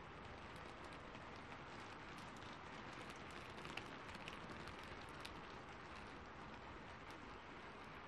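Faint, steady rain hiss with a few soft crackles from a fireplace clustered around the middle.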